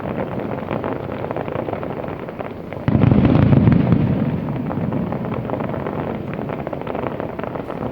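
Aerial fireworks bursting in dense crackling and popping, with a sudden, much louder deep boom about three seconds in that slowly dies away.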